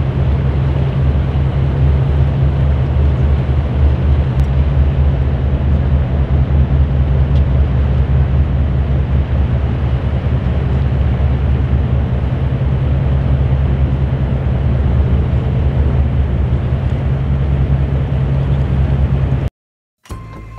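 Steady low engine drone with a rushing wash of noise, typical of a motor boat under way. It cuts off suddenly near the end, and quiet music starts.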